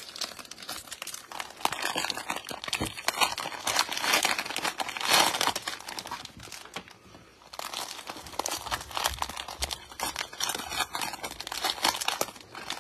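Clear plastic cellophane wrapper of a trading-card pack being torn open and crinkled by hand as the cards are pulled out: dense, continuous crackling with a brief lull about seven seconds in.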